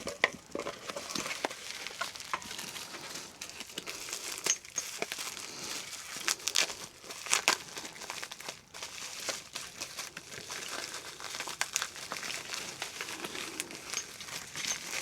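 Plastic packaging crinkling and crackling as it is handled and unwrapped, with many irregular sharp crackles.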